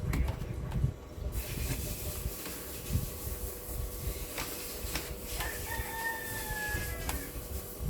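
A rooster crowing once, a held call of nearly two seconds about halfway through, over a steady hiss and a few sharp clicks.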